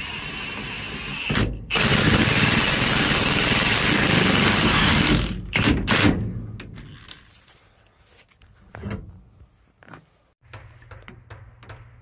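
Impact wrench driving the forcing bolt of a steering wheel puller. It gives a steady whine for the first second or so, then hammers loudly for about three seconds, then a few short bursts. After that there are only light clicks and taps of parts being handled.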